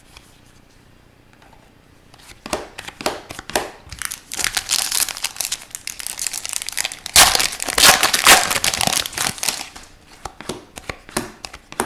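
Crinkling and tearing of a hockey card pack's wrapper as the pack is opened and handled. It starts about two seconds in, comes in bursts and is loudest a little past the middle.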